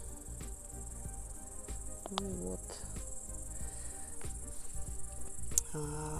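Insects chirring in a steady, high-pitched continuous trill over a low rumble, with a few soft knocks.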